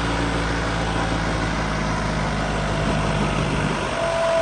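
New Holland 3630 TX Plus tractor's three-cylinder diesel engine running steadily under load while pulling. A steady higher whine comes in near the end.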